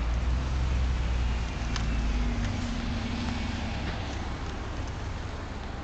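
Double-decker bus engine pulling away, a low rumble that is loudest at the start and fades as the bus drives off.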